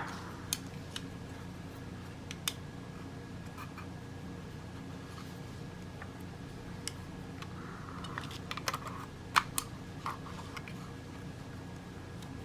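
Scattered light clicks and taps of a plastic smart light switch and its packaging being handled and fastened with a rubber band, thickest near the end, over a steady low room hum.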